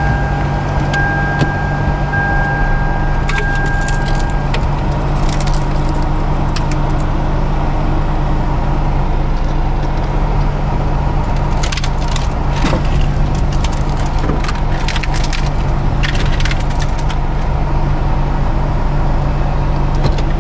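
Car engine running while the car is driven over thin scrap aluminum pieces, crushing them flat, with scattered crackling and crunching, densest past the middle. A steady electronic warning chime sounds for the first four seconds or so.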